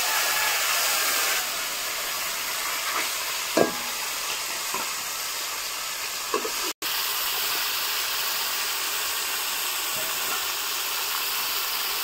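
Marinated loitta (Bombay duck) fish sizzling in hot mustard oil in a wok: a steady, even hiss with a few small pops.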